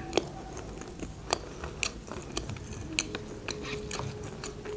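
Close-miked chewing of a fried mozzarella stick, with many wet mouth clicks and smacks; a few louder clicks stand out, one just after the start, one about a second in and one near three seconds.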